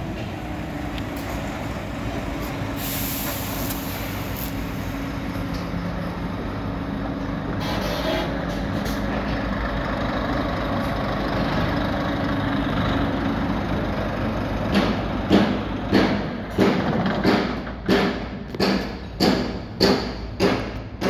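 Heavy diesel truck engine idling steadily, with a short burst of compressed-air hiss about three seconds in. Near the end comes a regular run of strong thumps, about one every 0.6 seconds.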